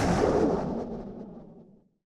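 The tail of a dark, noisy horror sound effect fading out, its high end dying first, until it is silent shortly before the end.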